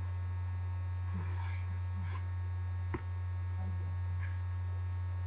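Steady low electrical hum, with a single sharp click about three seconds in.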